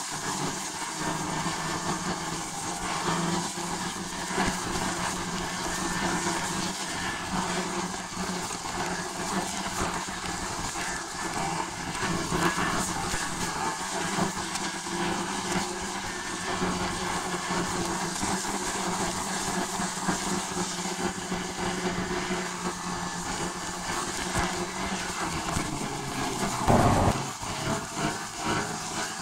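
Steady drone and hiss of a moving vehicle, with a low hum that holds pitch, and one louder bump about 27 seconds in.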